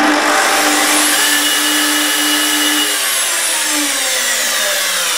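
A Festool TS 55 circular saw, switched on from the saw table with its trigger clamped down, starts abruptly and runs with a steady whirring whine. About three seconds in, its whine starts sliding down in pitch.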